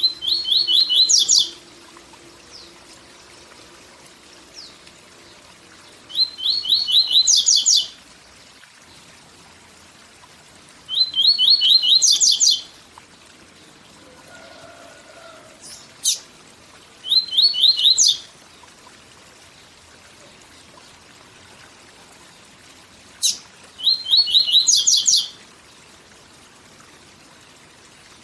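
Papa-capim seedeater singing its 'tui tui zel zel' song: five phrases a few seconds apart, each a quick run of repeated notes that jumps to higher notes at the end. The steady rush of a waterfall runs underneath.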